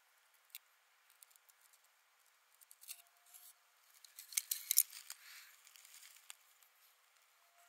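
Loose beaver teeth clicking against each other and against stones as they are handled. Scattered light clicks, then a quick flurry of louder ones a little past the middle.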